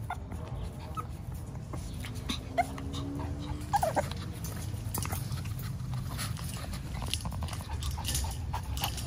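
Shih Tzu puppy whining softly and letting out a few short high yips, mostly in the first four seconds. Light clicks and scratches come throughout, over a steady low rumble.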